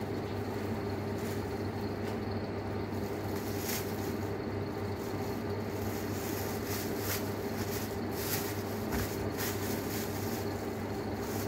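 A steady low mechanical hum with a handful of light clicks scattered through it.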